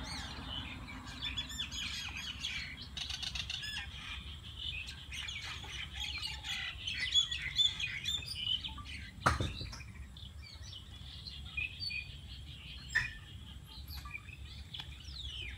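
Small birds chirping repeatedly, with a few sharp crunches and clicks as a dog chews dry food off concrete, the loudest about nine seconds in.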